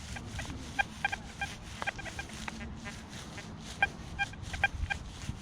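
XP Deus 2 metal detector giving repeated short beeps at one fixed tone as the coil sweeps over targets, with a few sharp clicks between them.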